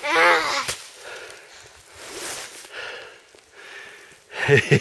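Heavy breathing and the rustle of snow and clothing as someone struggles through deep snow, after a short drawn-out voice sound at the start. Quick short voice bursts start near the end.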